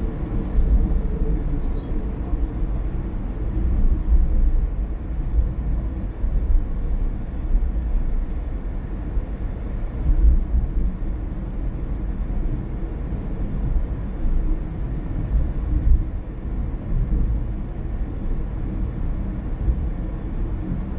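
Car driving along a road: a steady low rumble of engine and tyre noise, swelling and easing a little.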